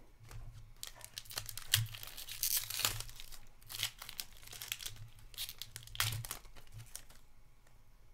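Foil wrapper of a hockey trading-card pack being torn open and crinkled by hand: a run of crackling rustles and rips, loudest in the first few seconds and again about six seconds in.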